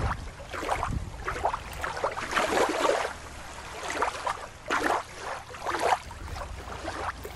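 Shallow surf washing and splashing in uneven surges, as a seal moves through the water's edge.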